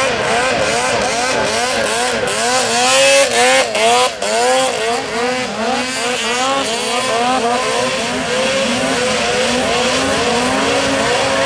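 An off-road vehicle's engine revving up and down in quick swings, about two to three times a second. It is loudest around three to four seconds in, with a few sharp noisy cracks, then settles into steadier running.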